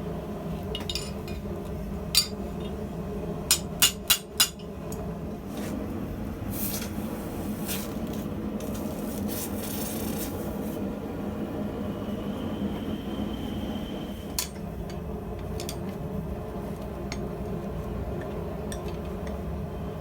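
Hammer blows on steel at the anvil: a few single strikes, then a quick run of four about four seconds in. After that comes a steady low hum with two spells of hissing, and one more knock later on.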